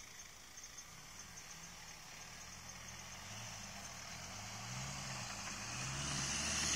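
Mitsubishi Pajero 4x4's engine growing steadily louder as it approaches, driving down a dirt slope, its revs rising and falling.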